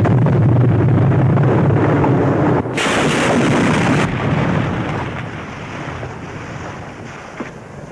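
Artillery shell explosion, a heavy rushing rumble with a sharper burst of noise about three seconds in, then slowly dying away.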